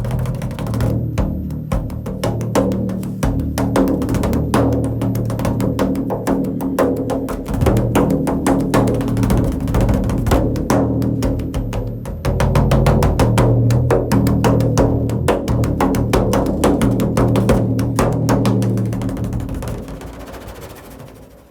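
Remo frame drum played in a fast, continuous roll of strikes with a deep, ringing boom, fading away near the end.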